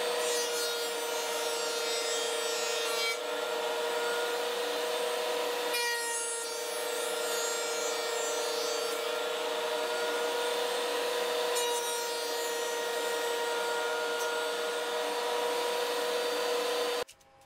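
Benchtop thickness planer running with a steady motor whine while its cutterhead planes thin mahogany strips. The cutting noise swells and falls several times as strips feed through, and the sound cuts off abruptly near the end.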